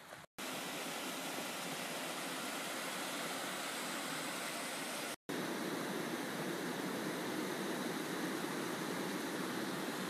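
Steady rush of running creek water, an even hiss without pauses, cut off twice for a split second, about a third of a second in and about five seconds in.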